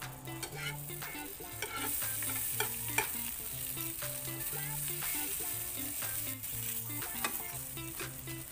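Butter sizzling in a frying pan under slices of ham, toast and an egg omelette, with a few sharp clicks of tongs against the pan as the ham is moved. The sizzle gets louder about two seconds in.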